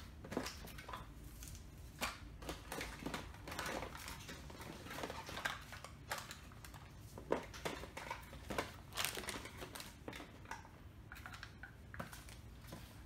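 Plastic snack cups and packaging handled and set down on a countertop: scattered light clicks, taps and rustles at irregular moments, over a faint steady low hum.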